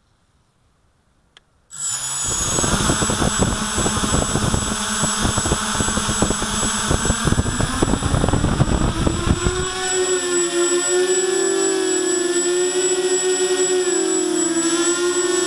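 Walkera Runner 250 quadcopter's four brushless motors and propellers spin up suddenly about two seconds in, over a constant high electronic whine. While it sits on the pad, the prop wash makes a rough, buffeting rumble. About ten seconds in it lifts off, the rumble drops away, and the propellers settle into a buzzing hum whose pitch wavers as the throttle changes.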